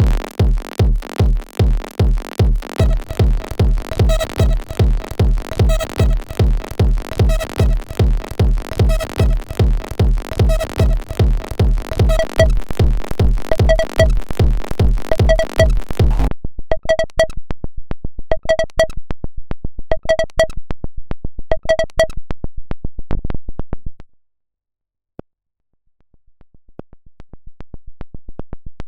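Electronic techno loop playing: driving kick drum and bass under fast hi-hats and a repeating synth blip. About sixteen seconds in the kick and bass drop out, leaving the hats and blips; it then stops for about two seconds before the loop fades back in.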